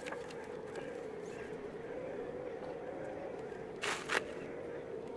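Photographs and paper being handled, with two short rustles close together about four seconds in, over a steady, slightly wavering hum.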